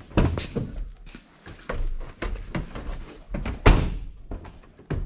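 A string of knocks and thumps as a person handles the doors of a Ford F-250 crew cab and climbs in over its tubular steel side step. The loudest thump comes about three and a half seconds in.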